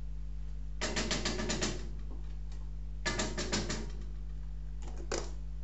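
A utensil scraping and tapping rapidly while butter is scooped from a tub into a saucepan, in two bursts of about a second each.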